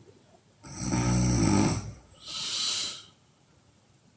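A sleeping woman snoring: one low, pitched snore about a second in, followed by a breathy hiss of air, then a pause with no breath sound.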